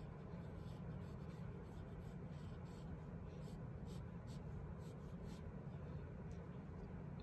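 Pencil scratching on paper in a run of short, quick strokes as a small window is sketched, over a low steady hum.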